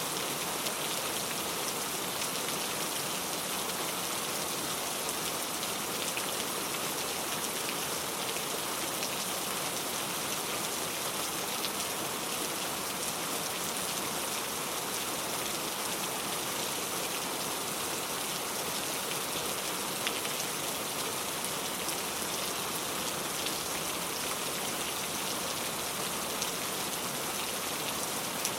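Steady rain falling, a dense even hiss of drops on a surface with faint scattered drop ticks.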